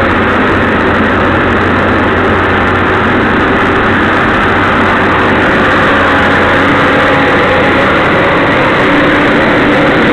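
Caterpillar 320C hydraulic excavator's diesel engine running steadily during its warm-up, with a constant low hum.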